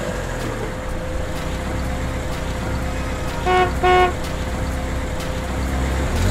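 Cartoon monster truck sound effect: a steady engine sound as the truck drives, with two short horn toots in quick succession about three and a half seconds in.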